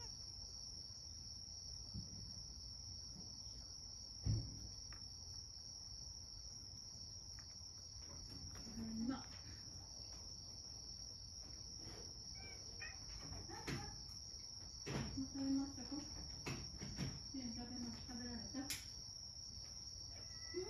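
A steady, faint high-pitched whine or trill, with a short thud about four seconds in and scattered faint knocks and low muffled sounds in the second half.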